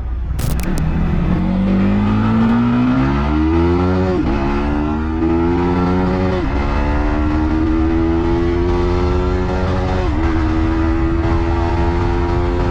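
Yamaha MT-15 V2's 155 cc single-cylinder engine accelerating through the gears. The exhaust note climbs in pitch, drops briefly at three upshifts (about four, six and a half and ten seconds in), and climbs again after each one.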